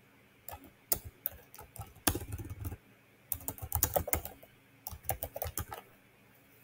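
Typing on a computer keyboard: several short bursts of quick keystrokes.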